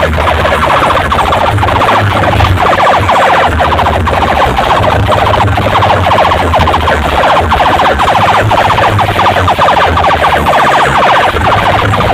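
Procession DJ loudspeaker stacks blasting a rapidly pulsing, siren-like electronic effect over a bass line that comes and goes. It is very loud throughout.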